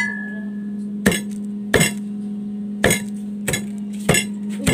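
Kitchenware clinking: about seven sharp, irregularly spaced clinks, the first one ringing briefly, over a steady low hum.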